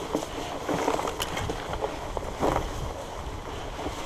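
Surly Moonlander fat bike ridden through tall dry grass: a steady rush of tyres and stalks brushing the bike, with wind noise on the microphone. A couple of sharp knocks about a second in and again about two and a half seconds in.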